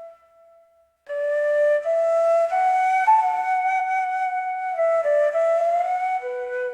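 Solo shakuhachi bamboo flute playing a slow melody: a held note dies away, and after a short pause about a second in a phrase of stepping notes with a breathy edge rises and falls, settling on a lower held note near the end.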